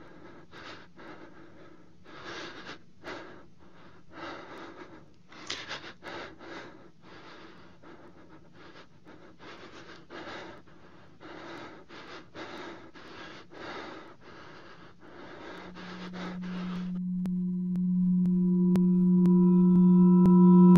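Heavy, ragged panting breaths, about one or two a second, over a faint low steady hum. Near the end the hum swells into a loud electronic drone, and synthesized music with a steady ticking beat comes in.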